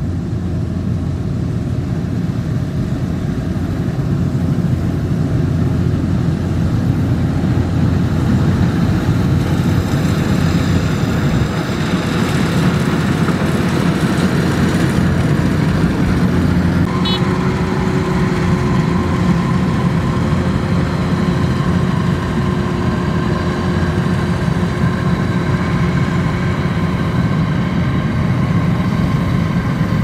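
Kubota DC93 combine harvester running steadily as it cuts and threshes rice: the diesel engine and threshing machinery make a loud, continuous drone. About halfway through a steady whine joins it and holds to the end.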